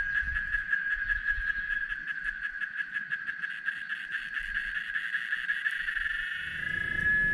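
Steady, high-pitched, rapidly pulsing trill of a night-calling animal. Near the end it smooths into a single held tone and a low rumble comes in.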